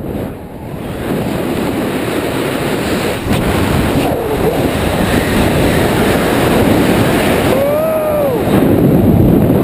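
Loud wind rushing over the camera's microphone during a head-first free fall on a canyon swing, building over the first second and then steady. About eight seconds in, a short yell rises and falls in pitch over the rush.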